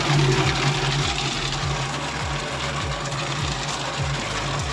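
Kadıoğlu CKS 80D walnut hulling machine running near its top speed, its perforated steel drum churning and rattling green-husked walnuts under a water spray as it begins stripping the hulls. A steady hum runs under the rattle, with a regular low throb a little over twice a second.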